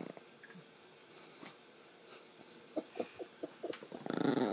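Chihuahua growling about four seconds in, a wavering warning growl as it guards a snack bag from another dog. Before that it is mostly quiet, with a few light clicks.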